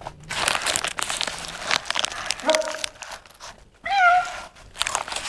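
A domestic cat meows twice: a short call about two and a half seconds in, then a louder one about four seconds in. Underneath, a paper food wrapper crinkles as it is handled.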